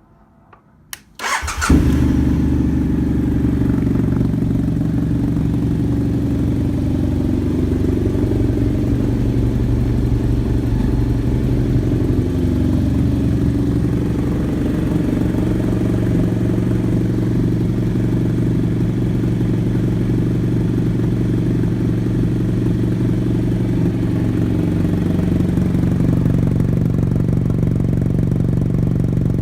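BMW F800 GS Adventure's parallel-twin engine, breathing through an aftermarket DanMoto carbon GP slip-on exhaust, is started: a brief crank on the starter, it catches under two seconds in, then idles steadily in a closed garage, the idle easing down slightly near the end.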